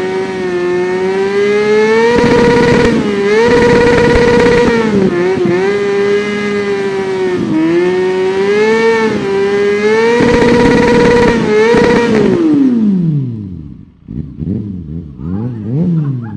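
Kawasaki Ninja 400 parallel-twin motorcycle engine revving, held at high revs with repeated brief dips in pitch. About 12 seconds in, the revs fall away steeply. A few quick throttle blips rise and fall near the end.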